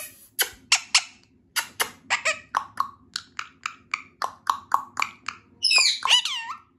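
Indian ringneck parrot making a quick series of short clicks, about four a second, then a short burst of whistled calls that sweep up and down near the end.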